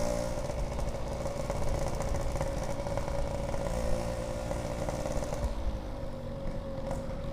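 Yamaha RX-King two-stroke single-cylinder motorcycle engine running at a steady speed through a Packing Power 3 aftermarket exhaust, with a constant pitch.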